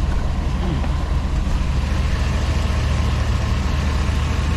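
2004 GMC Yukon Denali's V8 engine idling steadily at operating temperature, a continuous low hum.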